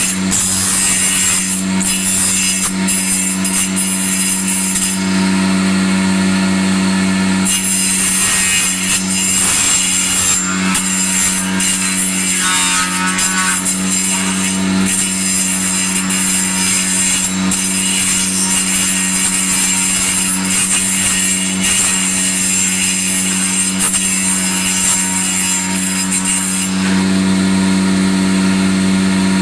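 Electric woodworking power tool running at a steady pitch, with the hiss of cutting into wood rising and falling over it.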